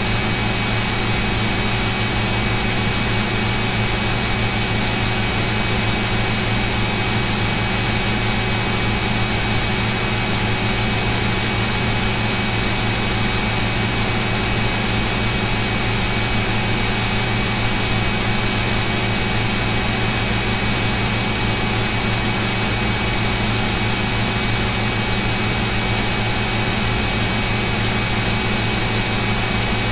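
Steady electrical hum with a constant hiss, unchanging throughout.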